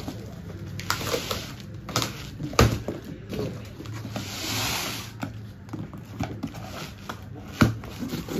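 Cardboard carton being torn open by hand: cardboard and packing tape ripping and rustling, with a longer tear around the middle and several sharp knocks as the flaps are pulled back.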